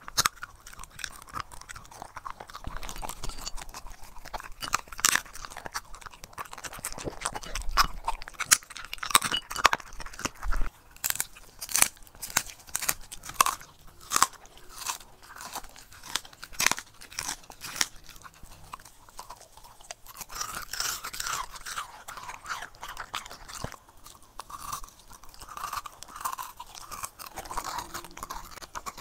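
Dog crunching and chewing frozen pumpkin treats and raw food, with a run of sharp crunches between stretches of chewing.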